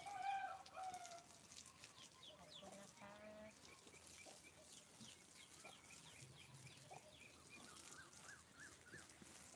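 Poultry calling at a farmyard: a rooster crows for about a second at the start, and another pitched call follows about three seconds in. Small birds chirp faintly through the rest, with a quick run of rising chirps near the end.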